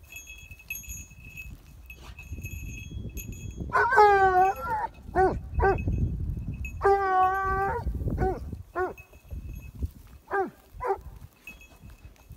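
Dog giving tongue in a string of cries: a falling yelp about four seconds in, several short yelps and one longer held howl, then two more short cries near the end. A faint steady ringing like a small collar bell sounds between the cries.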